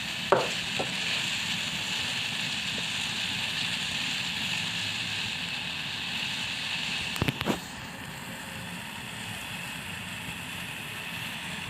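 Pot of water with bilimbi flowers and rock sugar boiling on the stove, a steady bubbling hiss. A few sharp knocks just after the start and a short cluster of them about seven seconds in.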